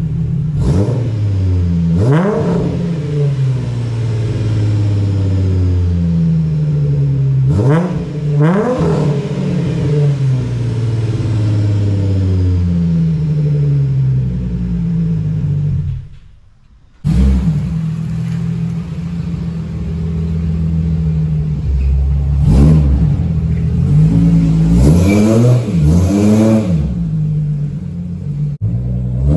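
Holden VY Calais's Ecotec V6 idling through a freshly built custom 3-inch exhaust with a hotdog muffler and resonator. The throttle is blipped several times, each rev rising and falling quickly. The sound drops out briefly about halfway through.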